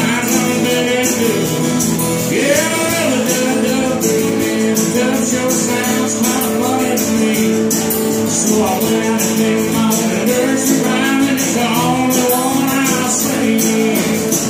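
Live country band playing amplified, with electric bass, guitars and drums keeping a steady beat and a melody line that bends in pitch over them.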